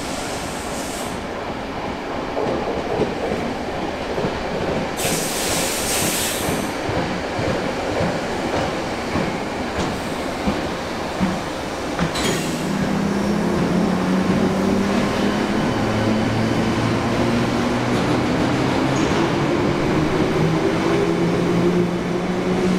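London Underground Track Recording Train, made of converted 1960 Tube Stock cars, coming out of the tunnel and running along an underground platform: wheel and rail noise throughout, with a burst of hiss about five seconds in. From about twelve seconds, as it passes, there is a steady hum with a slowly rising whine.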